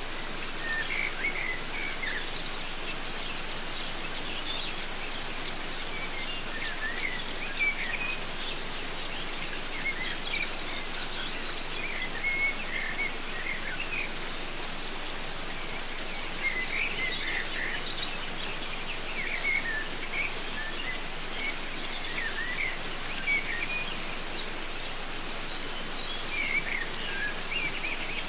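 Steady rushing of a waterfall, with birds calling in short, wavering chirping phrases every few seconds over it.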